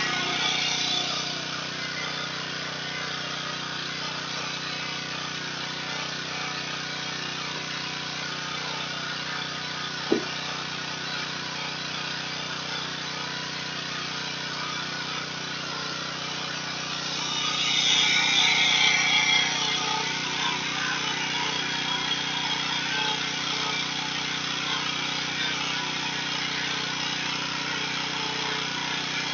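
Pressure washer running steadily, a constant motor hum under a hiss. A single sharp click comes about a third of the way in, and the hiss grows louder for a few seconds about two-thirds of the way through.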